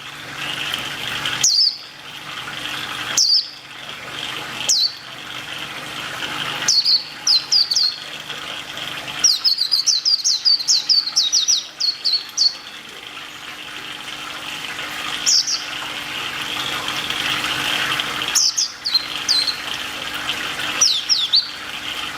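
A bird giving short, high chirps that fall in pitch. Some come singly, every second or two, and some come in quick runs, the longest about three seconds in the middle. Under them is a steady hiss like running water.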